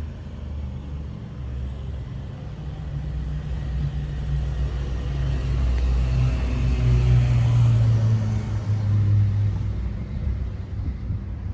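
A motor vehicle passing close by on the street: its engine's low hum and tyre noise build up, are loudest about seven or eight seconds in, then fade away.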